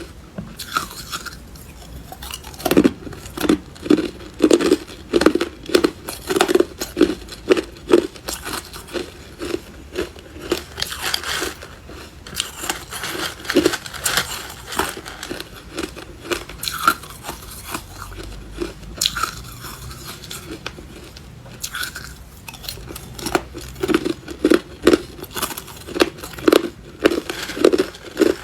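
A person chewing hard clear ice, crunching it in quick, regular bites about two or three a second. The crunching eases into a quieter, sparser spell midway, then picks up again near the end.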